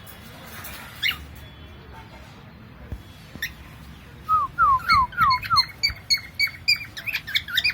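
Pet cockatiel calling: a couple of single sharp chirps, then about halfway through a run of five falling whistled notes that turns into a quick series of short repeated chirps, two or three a second.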